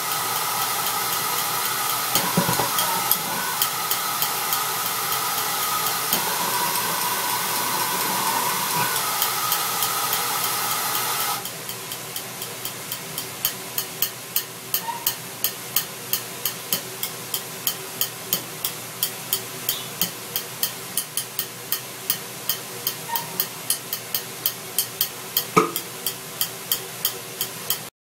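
Air rushing through a burner test rig: a loud steady hiss with a faint whistle that drops away suddenly about eleven seconds in. A quieter hiss remains, with sharp clicks two or three times a second.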